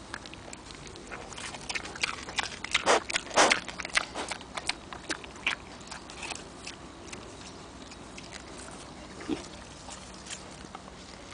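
Mini pig grazing, tearing and chewing grass: a run of sharp crunching clicks through the first half, then quieter.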